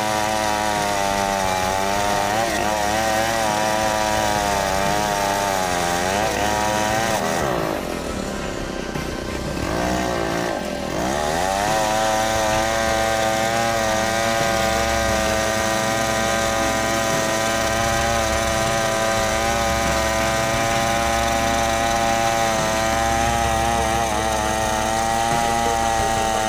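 Large two-stroke chainsaw running at full throttle, ripping lengthwise along a big log to cut planks. About a third of the way in the engine speed drops and wavers for a few seconds, then climbs back to a steady high note.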